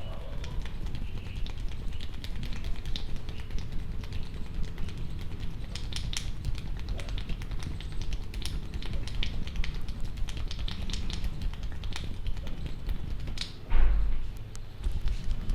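Head massage by hand: a run of quick, irregular light taps and scratchy rubbing of hands on hair and scalp over a low rumble, with one heavier thump near the end.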